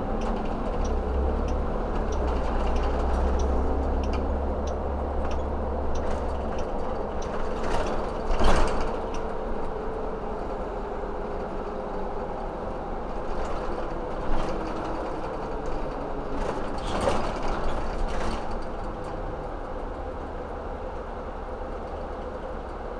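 A motor vehicle running steadily with low rumble and road noise, the engine tone drifting slowly in pitch. A few short knocks break in, the loudest about a third of the way through.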